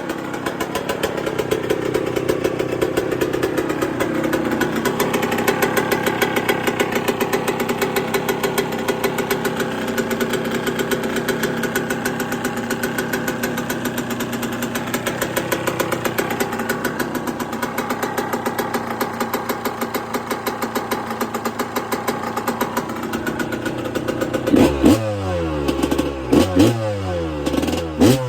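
Yamaha YZ125 two-stroke single, bored out to 144 cc, running loud and still cold, just after its first start since a full restoration. It holds a steady fast idle, then near the end it is blipped several times, the revs rising and falling quickly.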